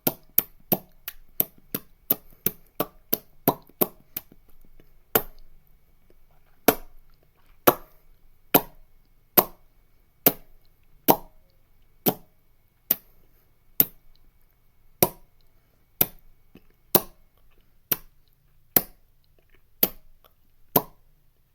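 A string of sharp, short pops, about three a second at first, then after a brief pause slowing to about one a second.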